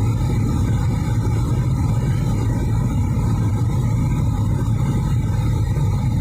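Steady low hum of the 1991 Ford Mustang's 5.0 V8 running, heard inside the cabin with the air conditioning on max.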